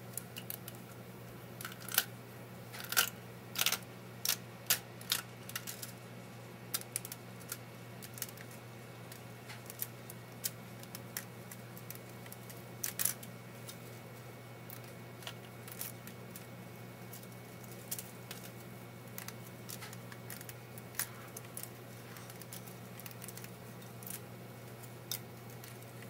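Printed plastic spring and its support material being handled and snapped off a 3D printer's build plate: a run of short, sharp plastic clicks and cracks, most frequent in the first few seconds and again about thirteen seconds in, over a steady low hum.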